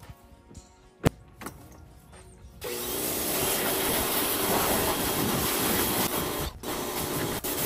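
A single click, then a pressure washer spraying water hard against the truck, starting abruptly nearly three seconds in as a steady loud hiss and cutting out briefly twice near the end as the spray is stopped and restarted.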